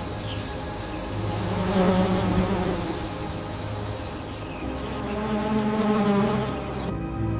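High, rapidly pulsing insect buzz that stops about halfway through, over slow sustained droning music tones.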